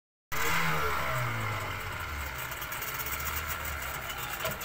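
Boat engine running steadily, starting abruptly after a brief silence.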